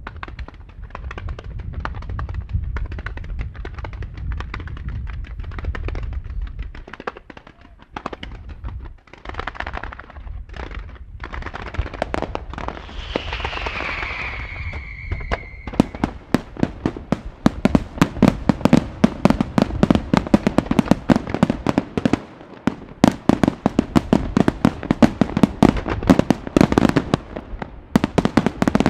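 Fireworks display: low booms with crackling at first, then a hissing stretch with a whistle gliding down in pitch midway. From about halfway on comes a dense barrage of sharp bangs, many a second, from low-level fan salvos of comets and crackling stars.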